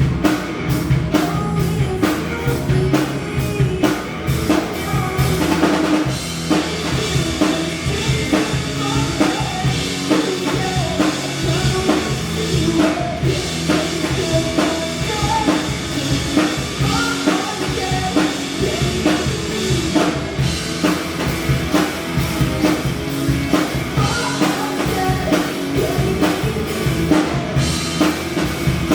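A band playing a song live: a drum kit keeping a steady beat with kick drum and rimshots over bass and other pitched instruments.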